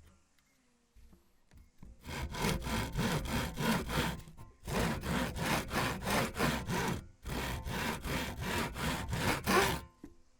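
A saw cutting through thin wood in rapid back-and-forth strokes. It comes in three spells of a couple of seconds each, with brief pauses between them, starting about two seconds in.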